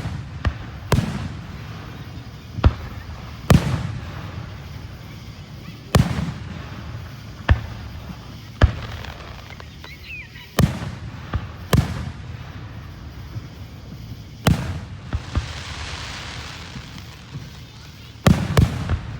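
Fireworks going off, about fifteen sharp bangs at irregular intervals, some in quick pairs, with low rumbling between them. A hissing crackle follows a burst a little past the middle, and a quick cluster of bangs comes near the end.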